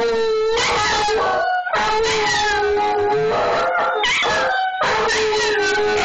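A German shorthaired pointer and a Jack Russell terrier howling together in long held notes, broken by a few short gaps.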